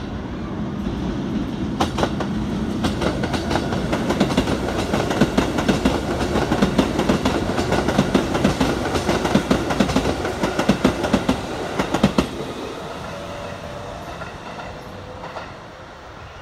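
Keikyu 800 series six-car electric train passing close by, its wheels clattering over the rail joints in a rapid run of clicks over a rumble. The clatter stops about twelve seconds in and the rumble fades as the train moves away.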